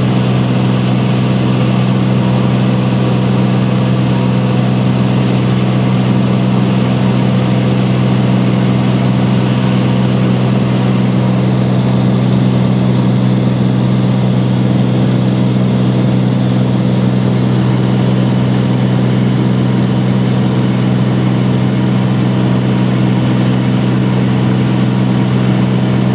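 Aircraft engine droning steadily, heard from inside the cabin: a constant low hum with a hiss over it that does not change.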